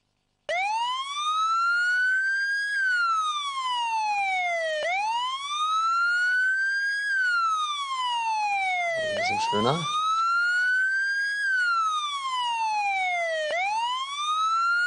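Siren sound effect starting abruptly about half a second in: a wailing tone that slowly rises and falls, repeating roughly every four and a half seconds. It works as the show's suspense cue while the last letter of the word puzzle is revealed.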